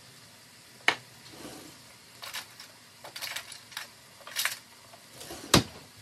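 Metal kitchen utensils clinking and rattling in a cutlery drawer as someone rummages through it. A sharp clack about a second in, as a metal can is set down on the counter, and the drawer shuts with a loud knock near the end.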